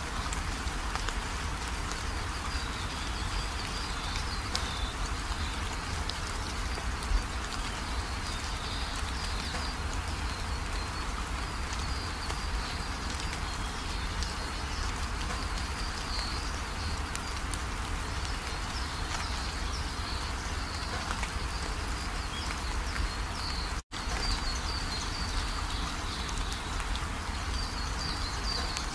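Steady forest ambience: an even hiss with a low rumble beneath it and high-pitched chirping running through it. The sound drops out for an instant about three-quarters of the way through.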